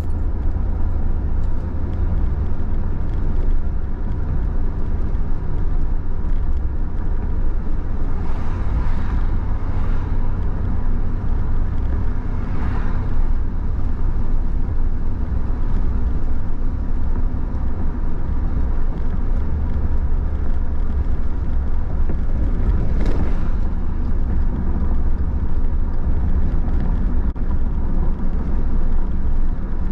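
Steady road and engine noise heard inside a moving car: a continuous low rumble of tyres and drivetrain. Brief whooshes rise and fade about 9, 13 and 23 seconds in.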